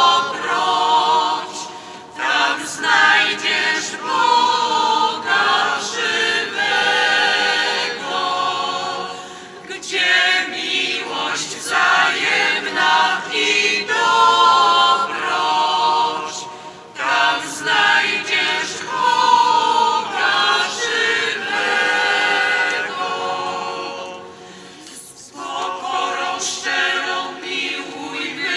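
Church choir singing a hymn in long phrases, with short breaks between them about every seven seconds.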